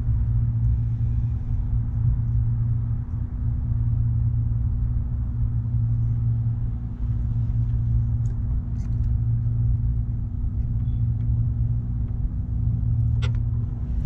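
A steady low hum, with a few light metallic clicks, most of them near the end, as a cotter pin is fitted through a motorcycle brake caliper's pad pin.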